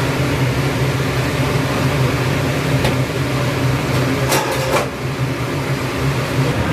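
Steady machine hum of a commercial ramen kitchen's equipment, such as the exhaust hood and the noodle boiler. A few short clatters come through it, one a little before three seconds in and a quick cluster around four and a half seconds, as noodles are laid into the bowls with tongs.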